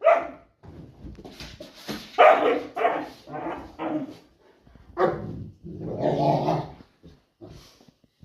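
Dog barking in play: a burst at the start, a run of short barks from about two to four seconds in, then a longer, drawn-out bark-growl around six seconds.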